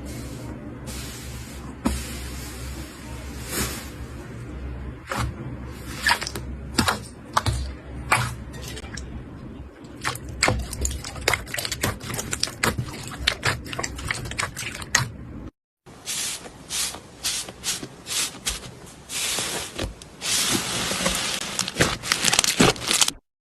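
Slime being squeezed and poked, giving a quick run of small wet clicks and pops, with a denser crackling, hissing stretch near the end.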